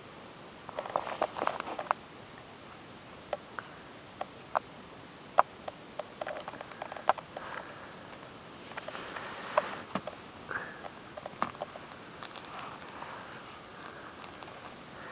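Handling noises from a rubber-gloved hand moving a plastic ruler against a pummelo and its loose peel: scattered sharp taps and clicks with short bursts of rustling.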